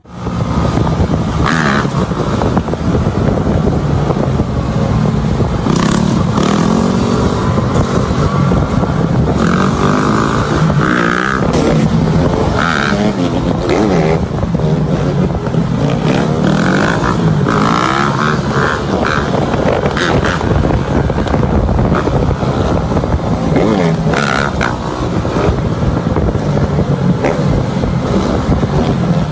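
Several dirt bike engines running on the move, their pitch rising and falling as the riders work the throttle.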